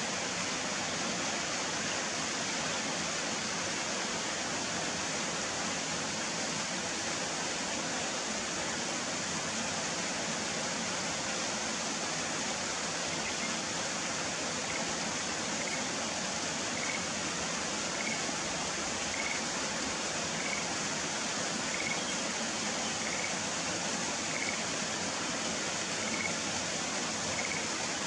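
Schlegel's green tree frog calling: a series of short notes about once a second, starting about halfway in, over a steady rushing background noise.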